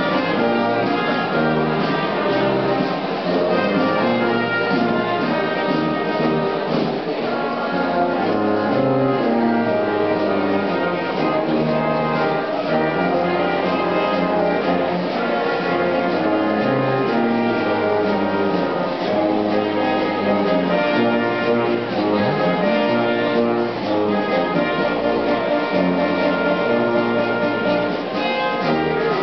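Orchestral music with brass instruments, playing without a break.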